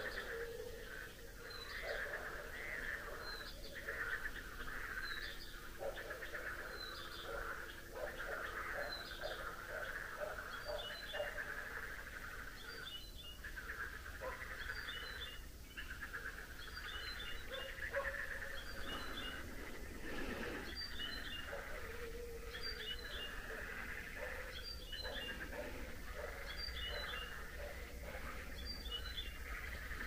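Evening countryside chorus: a bird repeats the same short, high call about every two seconds over a steady trilling chorus, with a few lower animal calls mixed in.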